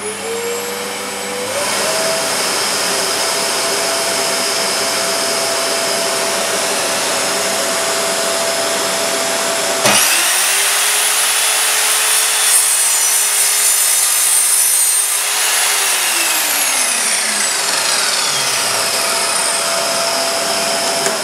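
A shop vacuum starts up and runs steadily. About halfway in, an Evolution R210SMS sliding mitre saw switches on with a rising whine, and its 20-tooth multi-material blade cuts easily through a fir board as the vacuum draws off the dust. Near the end the motor is released and winds down with a falling whine, leaving the vacuum running.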